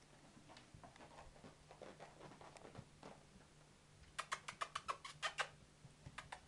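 Goldendoodle puppy's claws clicking and scratching on a hard floor: faint scattered ticks, then a quick run of about nine sharp clicks a little past the middle.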